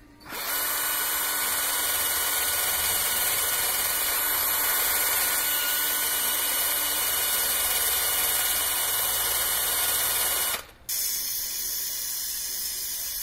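Power drill with a brush attachment spinning against a copper pipe end of a heat exchanger, cleaning the metal before soldering: a steady whir for about ten seconds that stops suddenly. Then a gas torch hisses steadily as the joint is heated for soldering.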